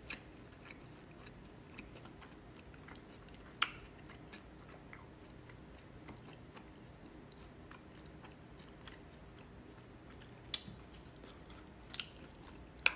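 A person chewing a mouthful of noodles close to the microphone, with a few sharp clicks scattered through.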